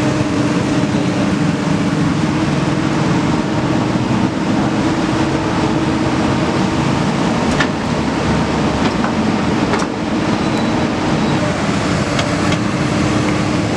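Komatsu PC200 excavator's diesel engine running steadily under work, with a few sharp clicks or knocks in the second half.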